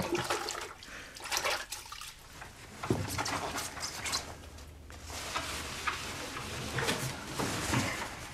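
Wet cleaning sounds: irregular scrubbing and wiping strokes of a gloved hand working over a wooden desktop, with small splashy, watery noises.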